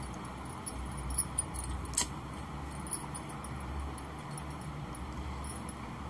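Hands handling and folding a beaded, embroidered suit neckline: light rustling with small clinks and clicks of the beads and sequins, the sharpest about two seconds in, over a low steady hum.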